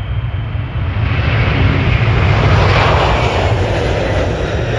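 Twin turbofan engines of a Boeing KC-46 Pegasus tanker at takeoff thrust as it lifts off and climbs away: a steady jet roar with a deep rumble that swells to its loudest about halfway through, then begins to ease.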